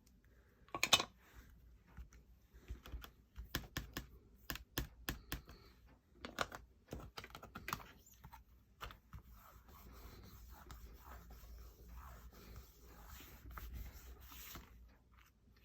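Light, quick taps and clicks of hand stamping: a black ink pad dabbed onto the stamp and the MISTI stamp positioning tool's lid and paper being handled. The clicks are sharpest over the first half; later, softer scuffing and rustling take over.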